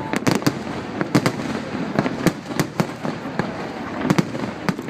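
Fireworks display going off: a rapid, irregular run of sharp bangs and pops, a dozen or more, over a continuous crackling rumble.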